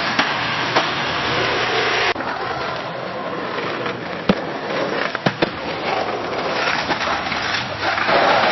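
Skateboard wheels rolling on pavement, a steady gritty rolling noise. About two seconds in one recording gives way to a quieter one, with a few sharp clacks in the middle, and the rolling grows louder again near the end.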